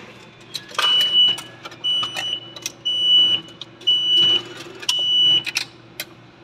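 Automatic railway ticket machine beeping five times, about once a second, each a steady high tone about half a second long: the reminder to take the change and card waiting in the trays. Sharp clicks between the beeps come from the machine and the notes being taken from the tray.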